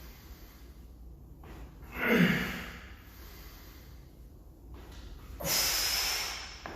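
A man breathing out forcefully with exertion, twice: a short grunted breath about two seconds in, falling in pitch, and a longer, hissier breath out about five and a half seconds in.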